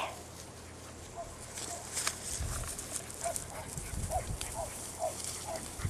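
Bulldog puppies making a string of short, faint squeaks, with scattered light clicks and scuffling as they move about.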